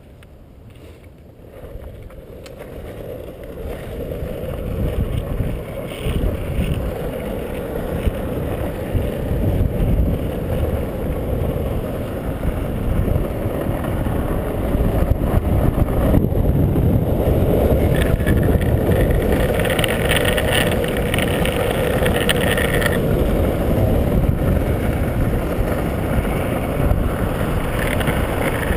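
Wind rushing over a helmet-mounted camera and longboard wheels rolling on asphalt, growing louder over the first several seconds as the board picks up speed downhill, then holding steady at speed.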